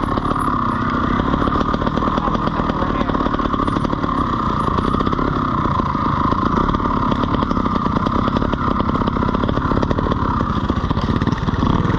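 Beta Evo 125 two-stroke trials motorcycle engine running continuously. The throttle is worked gently, so the engine note rises and falls a little without hard revving.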